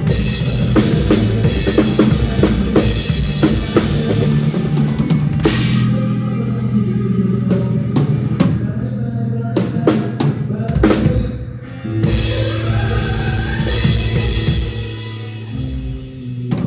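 Drum kit played along with a backing song, with bass drum, snare and rimshot hits over a steady bass line. The drumming is dense for about the first six seconds, thins out, and stops around twelve seconds in, leaving the band's pitched music.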